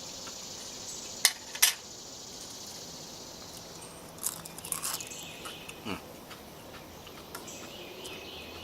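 Metal utensil clinking against a mess kit pan while eating: two sharp clicks a little over a second in, then a cluster of lighter clicks and scrapes about four seconds in.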